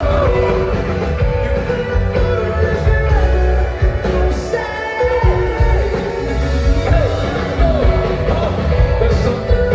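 Rock band playing live with a singer, loud and steady over a strong low bass.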